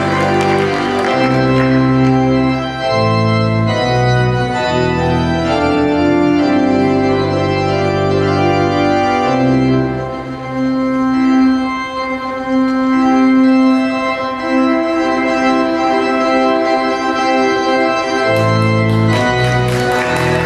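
Organ playing sustained chords over a bass line that steps from note to note.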